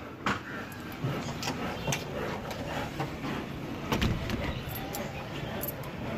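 Steady background street noise, with footsteps and clicks and knocks from a glass shop door being handled; the loudest knock comes about four seconds in, and keys jangle near the end.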